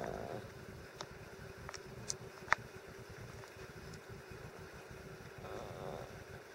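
Small dog whining: a wavering whine trails off at the start, a few light clicks follow, and a fainter whine comes near the end.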